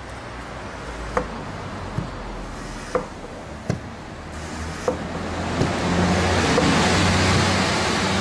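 Hand pump on a jerrycan of tyre sealant being worked, clicking sharply about once a second as it feeds sealant through a hose into a tyre valve. A rushing noise with a low hum swells over the last few seconds.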